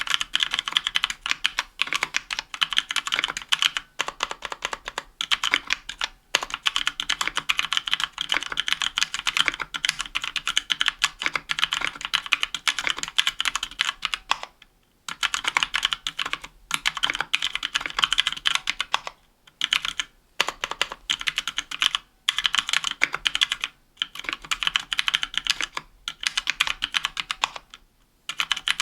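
Continuous fast typing on a 60% mechanical keyboard with Kailh Pro Purple tactile switches in an aluminium case and plate, under GMK keycaps. Each keystroke is a crisp click, in bursts of a few seconds with short pauses between.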